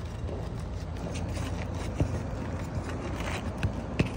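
Metal flat pry bar scraping and knocking under asphalt shingles as roofing nails are worked loose, with a few sharp clicks, the loudest about two seconds in and near the end, over a steady low rumble.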